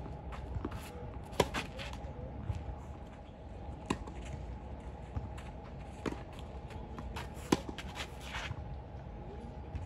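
Tennis rally on a clay court: four sharp racket-on-ball strikes about two to two and a half seconds apart, the loudest from the near player, with softer ball bounces and shoe scuffs on the clay between them. A faint steady hum runs underneath.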